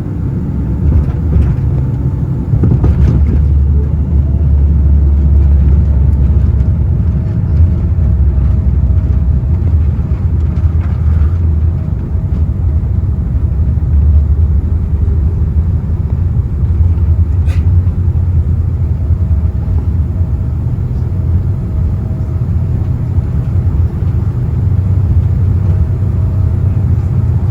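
Cabin noise inside a Boeing 767-400 airliner during landing: a loud, steady low rumble from the engines and airframe, a little heavier for a few seconds early on, with a single sharp click partway through.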